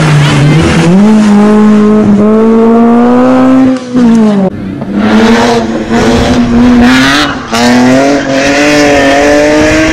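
Hillclimb race car engine held at high revs, its note climbing steadily and dropping sharply twice, about four seconds in and again about seven and a half seconds in, each time with a brief dip in loudness before it climbs again.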